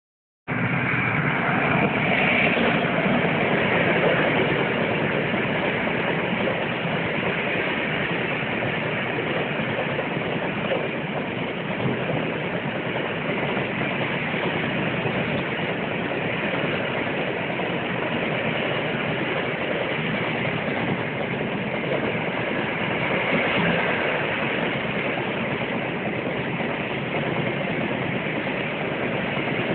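Freight train passing close by: a WAG-7 electric locomotive hauling a long rake of open freight wagons, with the steady noise of the wagon wheels running on the rails.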